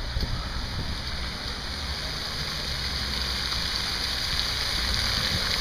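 Water splashing from a fountain's jets falling back into its basin: a steady, rain-like hiss that slowly grows louder.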